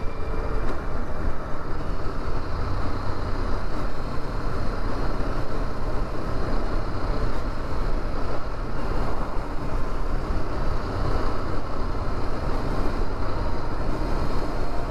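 Honda 400X motorcycle under way at a steady speed: its parallel-twin engine runs beneath a constant rush of wind noise over the camera microphone.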